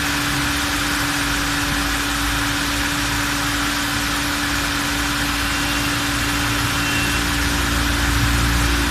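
Toyota Etios radiator cooling fan running continuously with the engine idling: a steady whoosh over a constant hum and a low rumble. The fan stays on because of air left in the cooling system, which was not bled.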